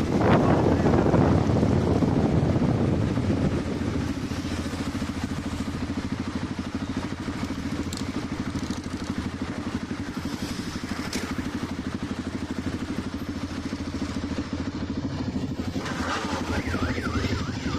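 Motorcycle engines running, louder for the first few seconds and then settling into a steady running hum. A rapidly warbling tone joins near the end.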